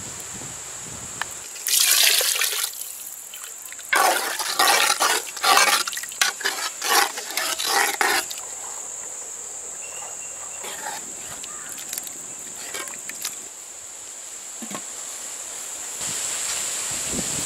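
Coconut milk poured into curry in a clay pot, splashing in loud bursts, the longest run lasting about four seconds, then quieter stirring with a ladle. A steady high whine runs underneath.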